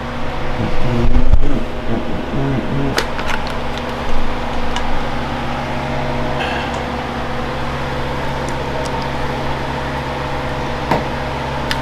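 A steady mechanical hum, with a low thump about a second in and a few sharp clicks scattered through.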